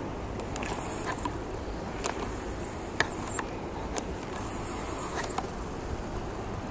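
Steady low rumble of heavy surf breaking on the tetrapod breakwater, mixed with wind on the microphone, with a few sharp clicks, the loudest about halfway.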